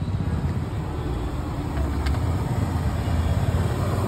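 Steady low engine rumble, like road traffic or an idling vehicle, with a faint click about two seconds in.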